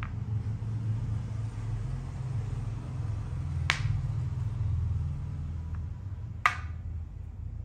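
Two sharp clicks of makruk (Thai chess) pieces being set down on the board, about three seconds apart, the second louder, over a steady low hum.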